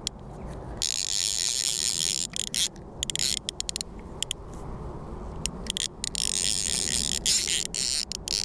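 Fly reel's ratchet ticking rapidly in runs with brief breaks as a hooked carp takes line off it.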